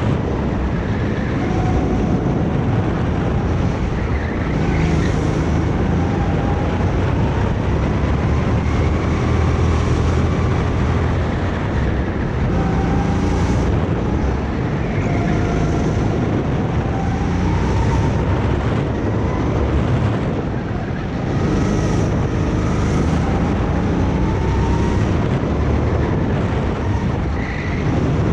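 Go-kart engine at racing pace, its pitch climbing again and again as the kart accelerates out of corners, with brief drops in between as it lifts off.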